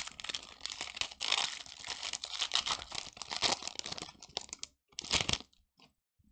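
Foil wrapper of a Pokémon card booster pack being opened and crinkled in the hands, a dense crackling that ends with one last short burst about five seconds in.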